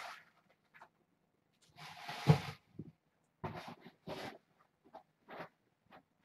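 Kittens scampering and pouncing on a rug, a scatter of short scuffs and rustles from paws and claws with one louder thump about two seconds in.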